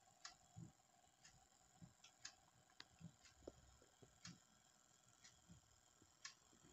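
Very faint sound of a freshly repaired TurnX 12 V DC incubator egg-tray turning actuator running as its rod slowly extends. It gives a faint steady hum with light, uneven ticks every half second or so.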